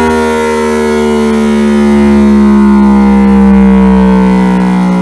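A Yamaha YZF-R1's inline-four and the dyno roller spinning down after a dyno pull. It is one loud, steady pitched drone that falls slowly in pitch, like a siren winding down.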